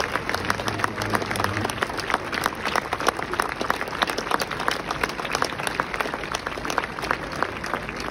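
A crowd of spectators applauding, with many hands clapping in a steady, dense stream.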